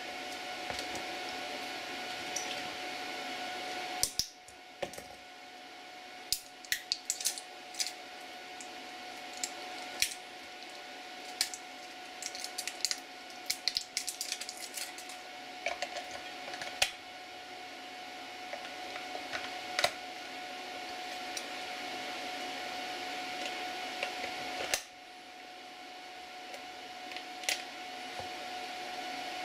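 Light plastic clicks and taps as AA batteries are handled and fitted into a Venlab VM-200M multimeter's battery compartment and its back cover is put on. The clicks are scattered, mostly in the first two-thirds with a couple more near the end, over a steady background hiss with a faint high tone.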